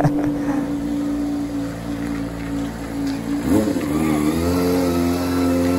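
Kawasaki ZX-25R's 250 cc inline-four engine running steadily at low revs. About three and a half seconds in, the pitch briefly rises and falls, then settles into a slightly higher steady note.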